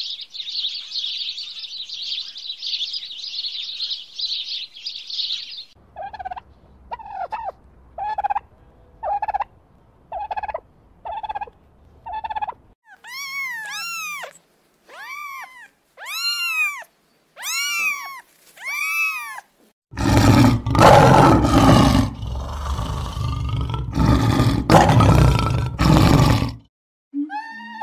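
Several different animal calls edited one after another. First comes a high, hissing chatter for about six seconds. Then short calls come about once a second, followed by arching calls that rise and fall in pitch, and in the last part loud, harsh, noisy calls.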